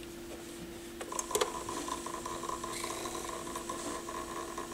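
Pioneer PL-707 turntable's drive mechanism running with a steady hum. About a second in, after a few handling clicks, a fast, even rattling chatter starts and keeps on: the unexplained rattle the repairer cannot trace.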